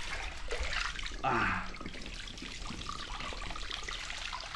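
Water running from a plastic hose pipe into a filled inflatable pool, trickling and splashing steadily. A short, falling vocal sound from a man about a second in.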